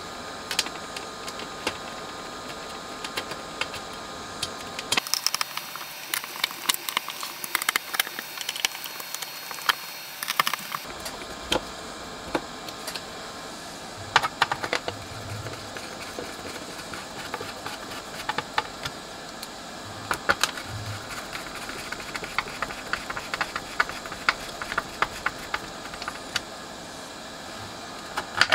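Small clicks, taps and rattles of hand tools and small metal parts being handled at a workbench, coming irregularly over a steady low hiss.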